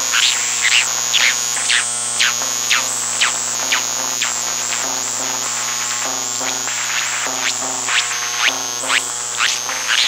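Four hard-drive spindle motors, driven by circuit-bent motor controllers under control voltage and heard through induction-coil pickups: a high whine that jumps between pitches over stepped lower tones and a steady low hum. Short chirps pulse about twice a second for the first few seconds, ease off in the middle, and return near the end.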